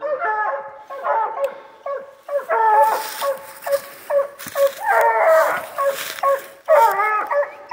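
Walker coonhounds barking in a rapid, steady chop, several overlapping voices about two or three barks a second, the way hounds bark at a raccoon they have treed.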